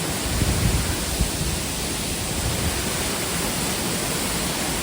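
Waterfall rushing loudly and steadily, heard close up, with heavier low rumbling on the microphone in the first second or so.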